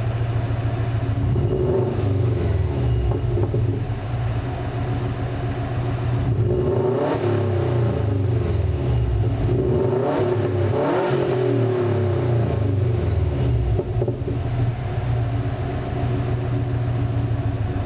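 2005 Subaru Legacy GT's turbocharged 2.5-litre flat-four heard from its exhaust tailpipe: idling steadily, blipped lightly about two seconds in, then revved up twice near the middle and dropping back to idle each time.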